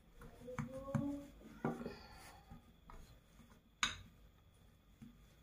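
Wooden rolling pin rolling out dough on a wooden board: faint rubbing with scattered light knocks, the sharpest about four seconds in.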